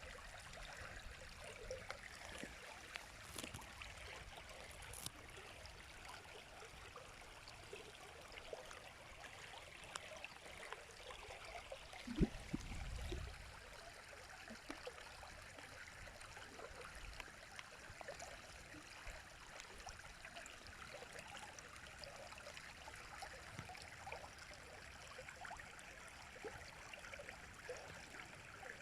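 River water flowing steadily, an even rushing sound with small splashy ticks through it. A brief low thump with a short rumble comes about twelve seconds in.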